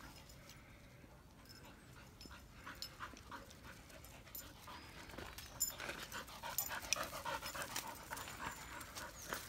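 Spaniel panting in quick, rhythmic breaths, louder over the last few seconds as it comes close.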